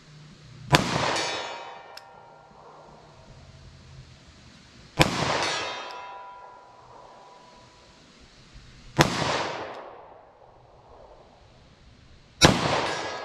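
Four shots from a Taurus 905 snub-nose revolver in 9mm, fired single action, spaced about four seconds apart. Each sharp report trails off in a ringing decay that lasts about a second.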